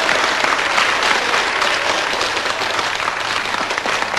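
A roomful of people applauding, the clapping easing off slowly.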